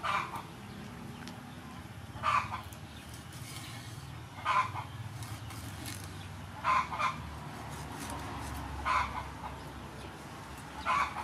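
A chicken calling in short clucks, repeated six times at an even pace of about one every two seconds.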